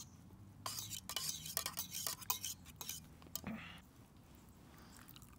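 A spoon stirring in a camp mug, with a run of clinks and scrapes for about three seconds that then stops.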